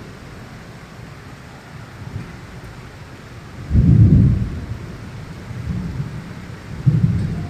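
Steady rain hiss with rolls of thunder: a loud low rumble swells up about four seconds in and fades over about a second, and another rumble breaks in suddenly near the end.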